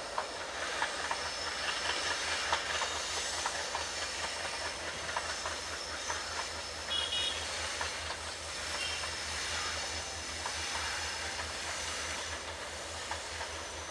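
WDM-3A diesel-electric locomotive approaching at the head of a passenger train: a steady, pulsing engine rumble under the hiss and clickety-clack of wheels on the rails. A brief high squeal comes about seven seconds in.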